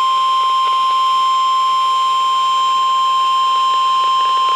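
NOAA Weather Radio 1050 Hz warning alarm tone: a single loud, steady, unbroken electronic tone. It is the signal that a warning, here a severe thunderstorm warning, is about to be broadcast.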